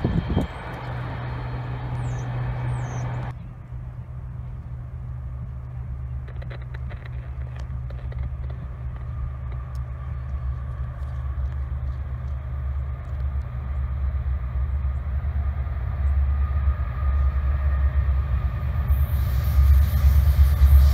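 Freight train's diesel locomotives, led by a Union Pacific unit, approaching with a low engine drone that grows steadily louder. Rail and wheel noise joins in near the end.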